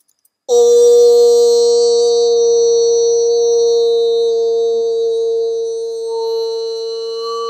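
A single struck bell-like tone, starting suddenly about half a second in and ringing on with several steady overtones, fading only slowly.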